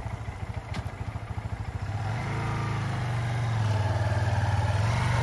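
SYM VF3i 185 scooter-style motorcycle's single-cylinder engine running at idle with an even beat, then opened up a little about two seconds in as the bike moves off, running steadier and somewhat louder.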